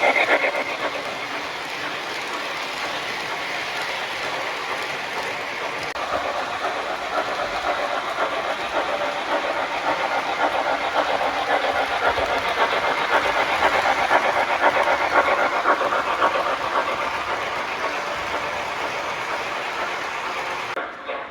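O-scale model train running on the layout track, a steady whir of motor and wheels with a fast clicking over the rail joints. It grows louder around the middle, then eases off and cuts off just before the end.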